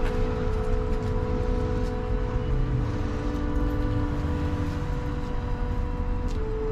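Improvised violin and flute holding long, quiet sustained notes, one held throughout and a lower one joining about halfway through, over a steady low rumble of street traffic.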